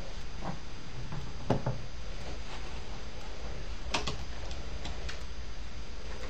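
Hands sectioning and handling long hair, with a few light clicks and taps and one sharper click about four seconds in, over a steady low hum.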